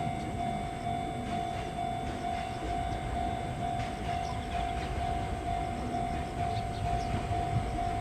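JR East E231 series electric commuter train approaching, its low running rumble building from about three seconds in. Over it a level crossing alarm bell rings steadily, about two strikes a second.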